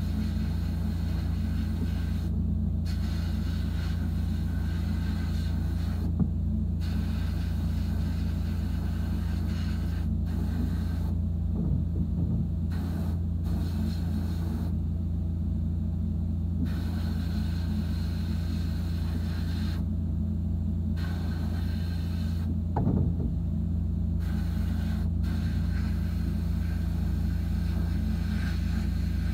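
Abrasive blast cabinet in use on a small toy truck part: a steady low hum, with the hiss of the blast gun starting and stopping every few seconds. A couple of light knocks.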